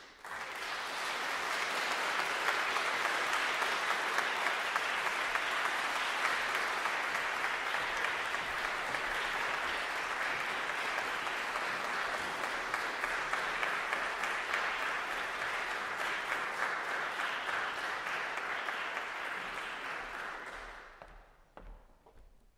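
Audience applauding, a dense steady clapping that starts suddenly and dies away about twenty seconds in.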